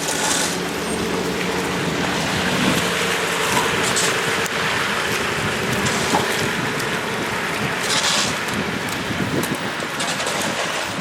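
Snowy city street noise: a steady rushing hiss of traffic and wind, with a vehicle engine humming through the first half.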